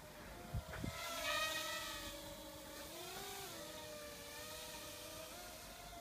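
Parrot Rolling Spider mini quadcopter's motors and propellers whining, the pitch shifting up and down as the drone manoeuvres, loudest a second or two in. Two short low knocks near the start.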